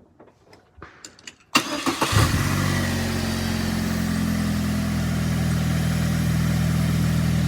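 Car engine cranked and started about one and a half seconds in, catching within about a second and settling into a steady idle. It draws air through a freshly fitted cold air intake with an open cone filter, and the intake is sucking pretty hard.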